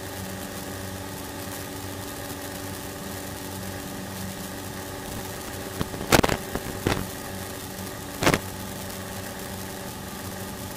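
Cessna light aircraft's engine droning steadily in cruise, as heard in the cockpit, with a few brief sharp crackles about six and eight seconds in.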